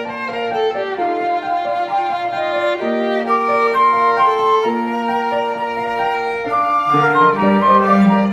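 String ensemble playing a slow, sustained melody, a violin carrying the tune over lower bowed parts; a deeper string line comes in about seven seconds in.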